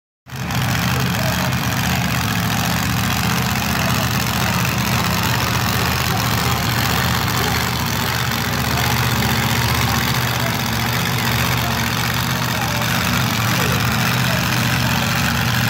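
A pickup truck's engine at a truck pull running steadily, a low even drone with no big revs.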